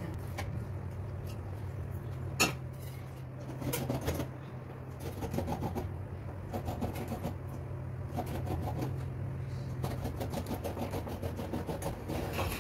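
Wooden spatula stirring and scraping a thick, sticky burfi mixture around a nonstick frying pan: irregular scrapes and light knocks, one sharper click about two and a half seconds in, over a steady low hum.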